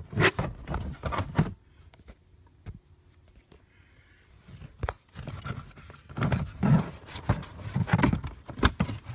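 Plastic under-dash cover of a 2009 Audi Q7 being handled and fitted back into the passenger footwell: a run of knocks, clicks and scrapes, a quieter stretch of a few seconds with a couple of single clicks, then more knocking and rustling.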